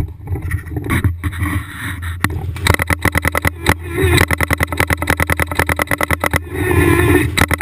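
Paintball marker firing reusable rubber reballs in a rapid string of sharp pops, roughly ten shots a second for nearly four seconds. Before the string come scuffling knocks as the player moves into cover, and near the end a short rush of noise.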